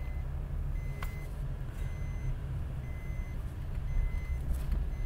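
An electronic warning beeper sounding one steady, even beep about once a second, over the low rumble of a car's engine and road noise heard from inside a taxi. A single sharp click comes about a second in.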